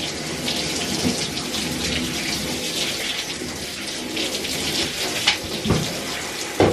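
Handheld shower head spraying water onto hair over a bathtub: a steady hiss of running water, with a couple of short knocks near the end.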